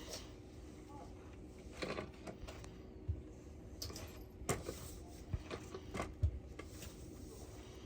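Scattered light clicks and a few soft low knocks, a second or two apart, over a low steady background.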